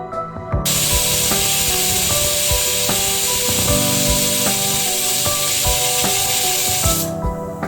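Steady, loud hiss from the cooking, starting suddenly about half a second in and cutting off near the end, over soft instrumental background music.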